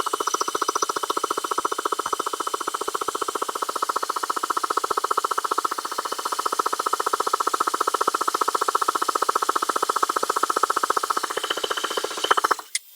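Electric starter motor cranking a Suzuki RG125 two-stroke engine with its spark plug removed, a fast even whirr that turns the engine over to prime the oil pump. It stops abruptly near the end.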